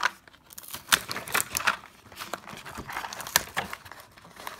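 Plastic toy packaging being handled and worked open, crinkling with a run of sharp, irregular clicks and cracks.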